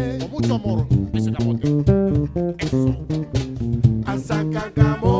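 Live band music: an electric bass guitar line over nylon-string guitar, with sharp hand-percussion strikes keeping a busy rhythm.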